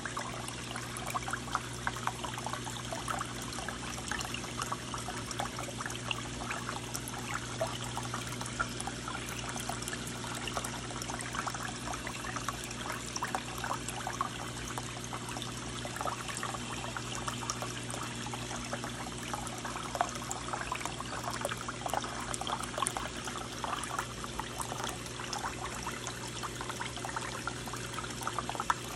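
Reef aquarium water circulation: a steady trickling and splashing of falling water, over a constant low hum of the tank's pumps.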